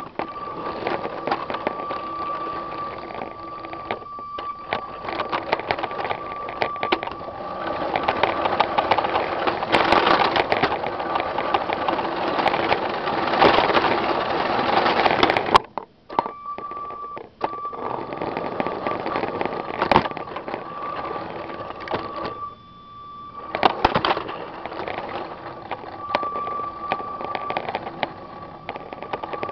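Lego toy train running along its track: the small electric motor gives a steady high whine over plastic rattling and frequent clicks from the wheels on the track. The sound cuts out briefly a little past halfway, then resumes.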